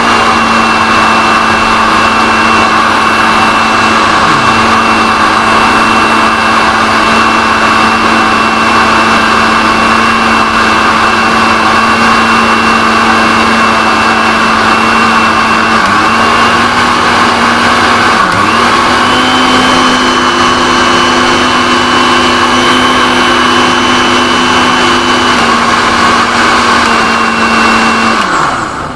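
Butterfly Rapid 750-watt mixer grinder running with its juicer jar, blending carrot and beetroot into juice: a loud, steady motor hum with a high whine. Past the middle the pitch dips briefly twice and then holds a little higher. Near the end the motor is switched off and spins down.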